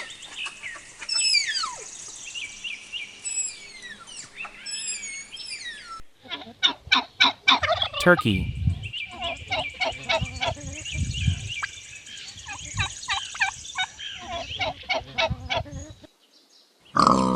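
A tapir's high whistling squeals, a series of thin calls gliding up and down, for the first six seconds. Then turkeys gobbling: fast rattling gobbles repeated for about ten seconds.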